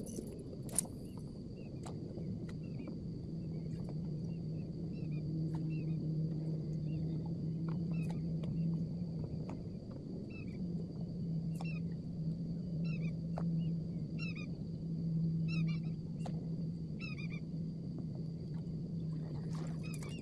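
A steady low hum that sets in about two seconds in, drops out briefly about halfway and then resumes, over repeated short bird chirps and a steady high insect drone, with a few light clicks.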